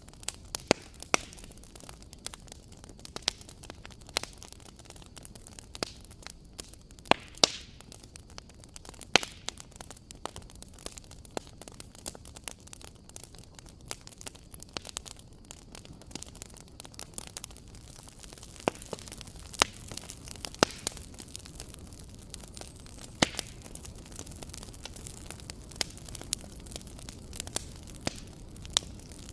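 Wood fire in a fireplace crackling, with irregular sharp pops and snaps over a steady low hiss.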